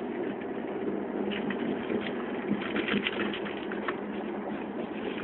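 Steady in-cabin hum of a Chevrolet Camaro SS's 6.2-litre V8 and road noise while the car drives along.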